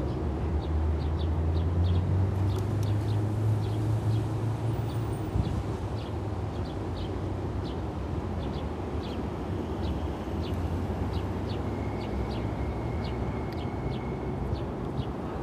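City street ambience: a steady low traffic hum, a little louder in the first few seconds, with small birds chirping over it in short, repeated calls.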